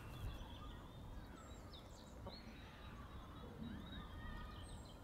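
Faint outdoor birdsong: scattered short chirps and whistles from small birds over a steady low background rumble.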